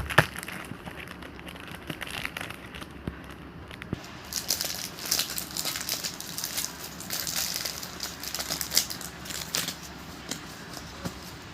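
Plastic wrapping of a trading-card pack crinkling as it is handled, with a sharp click at the start and a denser stretch of crinkling from about four seconds in that thins out near the end.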